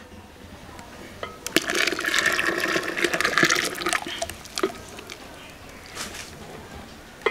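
Thin rice paste pouring in a stream from a plastic bowl into a large aluminium pot of milk, splashing into the liquid. The pour is loudest for a couple of seconds, then eases to a quieter trickle, with a few light knocks.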